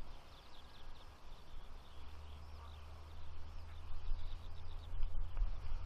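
Eurasian skylark song: a run of quick high chirps and trills over a low steady rumble.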